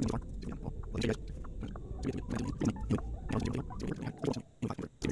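Irregular sharp clicks and knocks, a few a second, over a low steady rumble.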